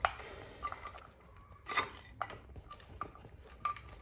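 Small metal engine parts and hand tools clinking and tapping against the aluminium cylinder head of a 2005 Yamaha R1 as the cam caps and camshafts are taken off. The sharp clicks come every half second to a second, about six in all, and some ring briefly.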